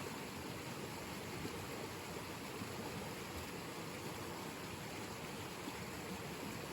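Mountain stream running slightly high, a steady rush of water.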